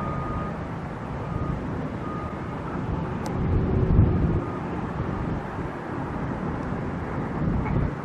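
Engine rumble of construction machinery working on the site, swelling louder about four seconds in, with faint short beeps repeating in the first couple of seconds.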